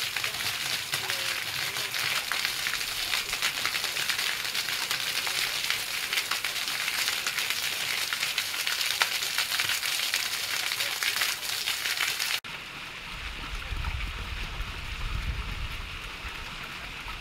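A tall single-jet fountain's water falling back and splashing onto a paved basin: a steady, crackling hiss like heavy rain. It cuts off sharply about twelve seconds in, giving way to the quieter splashing of several small bubbler jets over a low rumble.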